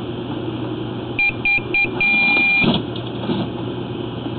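Three short electronic beeps and then one longer beep, all at the same pitch, over a steady low mechanical hum.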